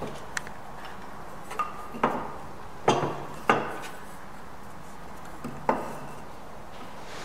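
About six sharp wooden knocks and clacks as a square-section softwood workpiece and hand tools are handled and set down on a wooden workbench. The loudest come near the middle, and some have a brief ring.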